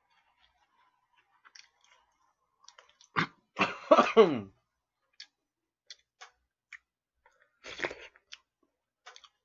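Close-miked eating: scattered light clicks of a metal fork against plastic food containers, with chewing and mouth sounds. About three and a half seconds in there is a short hum whose pitch falls, the loudest sound here, and near the end a louder mouthful as food goes into the mouth.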